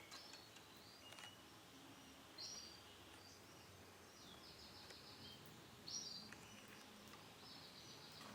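Canary chirping faintly, giving short high-pitched calls and a few quick trills of repeated notes; the loudest call comes about six seconds in.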